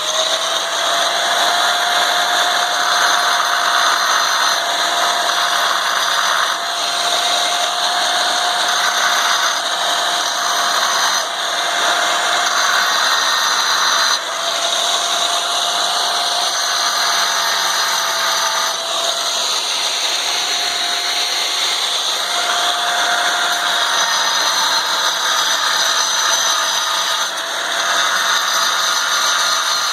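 Angle grinder cutting into ceramic tile: the motor runs with a steady whine throughout, while the grinding noise swells and eases over stretches of a few seconds as the disc is worked into the tile to cut out a hole.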